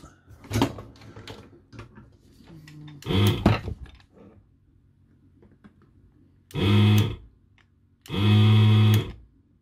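Electric desoldering gun's vacuum pump buzzing in two short bursts, the second about a second long, each time the trigger is pressed to suck solder from a diode's pads. The owner finds it is not sucking that well. A few light knocks from handling the circuit board come first.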